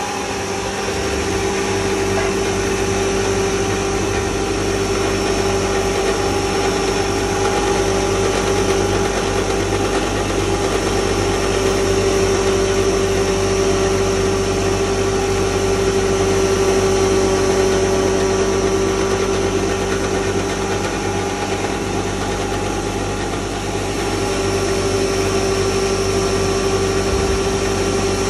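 Stainless steel coriander grinding mill running steadily with a constant hum as coriander seeds feed down from its hopper into the grinding chamber.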